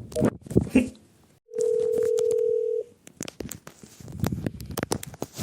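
A single steady telephone line tone, held about a second and a half, followed by a quick run of clicks and taps from handling the phone.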